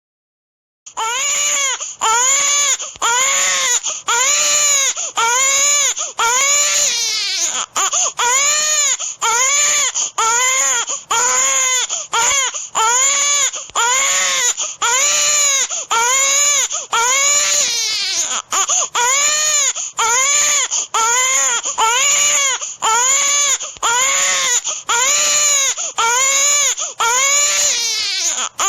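Looped baby-crying sound effect: the same short rising-and-falling wail repeated over and over, roughly once every second and a bit, starting about a second in.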